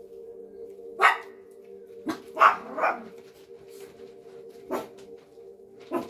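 Maltese puppies yipping in play: about six short barks, the loudest about a second in and midway, over soft steady background music.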